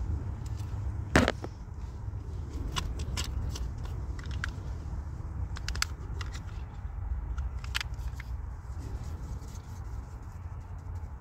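Small clicks and taps of plastic makeup cases and a pencil being handled, with one sharper click about a second in, over a steady low rumble.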